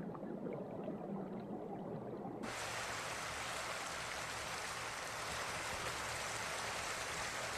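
Muffled, low gurgling of stream water, then about two and a half seconds in a sudden change to the steady, hissing rush of a shallow stream running fast over rocks.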